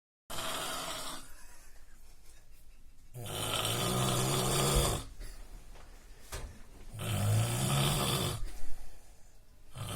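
A man snoring in his sleep: long snores of about two seconds each, coming about every four seconds, with quieter breathing between.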